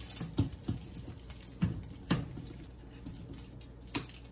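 Sausage meat being forced through a piston sausage stuffer's tube into a casing: a few short, irregular wet squelches and pops as the filling pushes into the casing.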